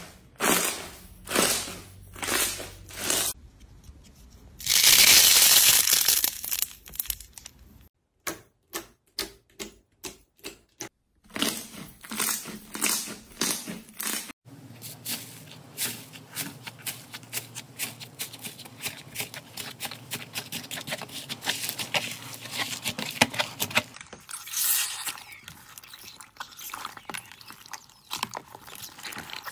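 Hands squishing, pressing and pulling slime, making quick repeated sticky pops, crackles and squelches, with one longer, louder burst about five seconds in. The sound changes as different slimes come in turn, ending with blue jelly slime packed with foam cubes being squeezed.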